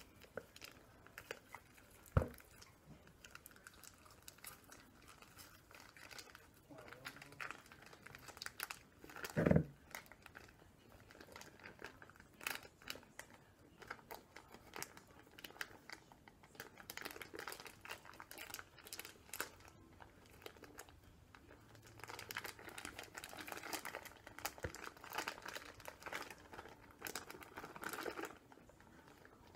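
Plastic ground-beef packaging crinkling and crackling irregularly as it is squeezed and worked in the hands, busier in the last third. Two dull knocks stand out, about two seconds in and about nine and a half seconds in.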